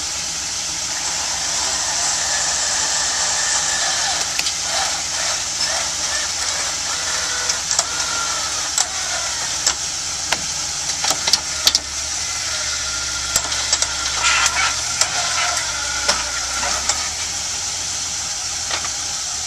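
Jeep engine running at low revs as it crawls onto a boulder, a little louder about halfway, with scattered sharp clicks and knocks in the middle and a steady high hiss behind.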